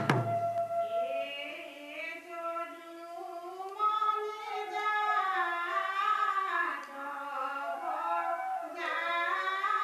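Bhodiya naam, an Assamese devotional hymn, sung by women's voices as a slow, drawn-out melody with gliding, sustained notes and no drums or cymbals underneath.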